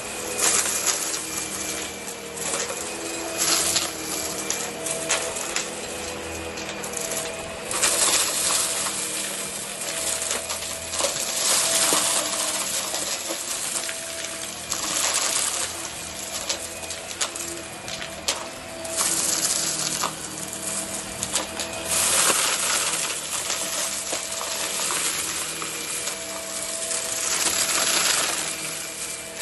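Hart vacuum cleaner running on carpet, its motor whining steadily while it sucks up shredded paper fluff and small hard beads. The beads rattle and crunch through the head and tube in repeated loud surges.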